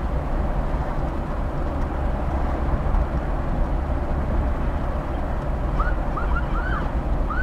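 Steady road and engine noise heard inside a car cruising at about 47 mph, a low rumble with tyre hiss. Near the end, a few short, faint up-and-down tones come in.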